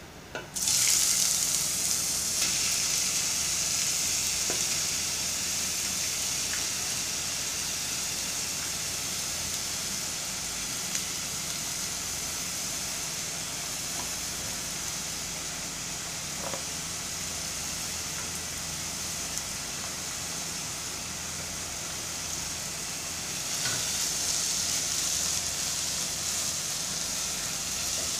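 Finely chopped onions dropped into hot oil in a pot, sizzling steadily as they fry. The sizzle starts suddenly about a second in and grows louder again near the end, with a few faint clicks of a silicone spatula scraping and stirring.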